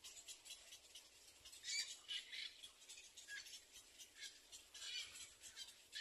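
Faint, scratchy squawking calls of a black-crowned night heron chick in the nest, coming in a few short bursts: the loudest about two seconds in, another near five seconds.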